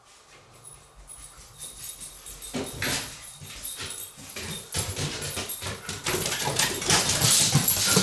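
Dogs running down a flight of stairs, their paws thudding and scrabbling in a fast, irregular patter that starts faintly, turns busy about two and a half seconds in and grows louder as they come closer.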